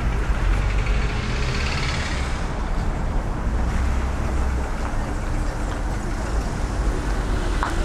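Street traffic: vehicles passing with a steady low engine rumble, and a swell of tyre hiss in the first couple of seconds that fades away.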